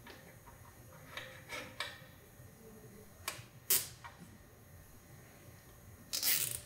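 A nylon cable tie being worked by hand: a few scattered soft clicks, then a short zip near the end as the tie is pulled through its locking head.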